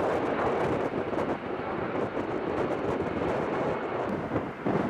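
Jet airliner engines giving a steady, noisy rumble, dipping briefly near the end.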